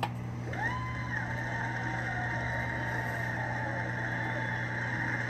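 A radio broadcast in a gap between spoken segments: a steady low hum, with a faint tone that slides up about half a second in and then holds.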